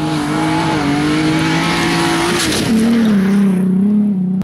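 Rally car racing past on a gravel stage, its engine at high revs; the engine note drops as it goes by, about two and a half seconds in.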